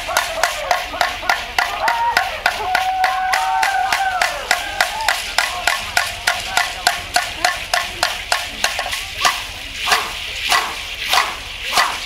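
Traditional Vanuatu dance percussion: a steady beat of about three to four strokes a second from the dancers' stamping feet and ankle rattles, with high chanted singing over it in the first few seconds. After about nine seconds the beat slows to about two heavier strokes a second.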